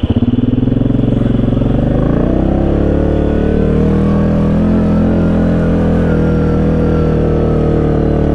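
Single-cylinder ATV engine pulling away from a slow, pulsing chug, its revs climbing over the first two or three seconds, then running steady.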